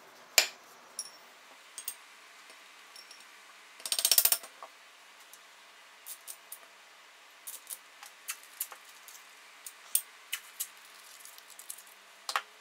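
Hand tools and Wilton Bullet bench vise parts being handled during reassembly: scattered metal clicks and knocks, with a short run of rapid ratchet-like clicks about four seconds in.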